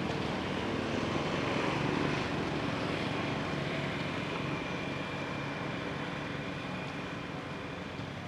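An engine running steadily, its sound slowly fading away.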